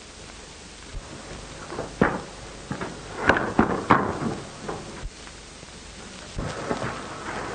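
Steady hiss of an old film soundtrack, then, from about two seconds in, a few seconds of irregular sharp knocks and thumps, with more starting again near the end.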